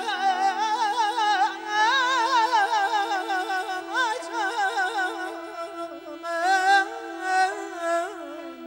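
Azerbaijani mugham ensemble of tar, kamancha and balaban with gaval and naghara playing an instrumental passage: a richly ornamented melody with fast trills and vibrato over a steady held drone note.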